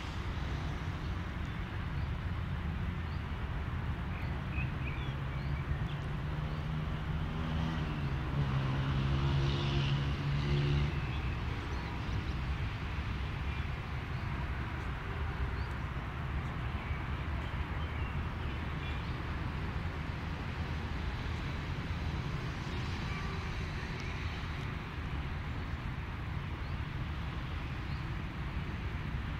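Steady outdoor traffic rumble with a motor vehicle's engine passing, rising in pitch about a quarter of the way in and fading out at around the one-third mark.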